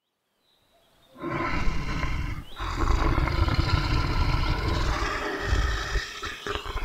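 A lion roaring and growling in long, deep stretches, starting about a second in, with brief pauses about two and a half seconds in and again near six seconds.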